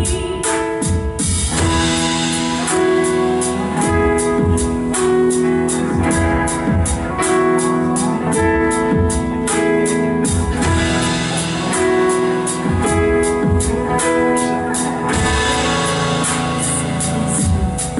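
Live worship band playing: guitar, drum kit with a steady beat and sustained keyboard chords, an instrumental passage between sung lines.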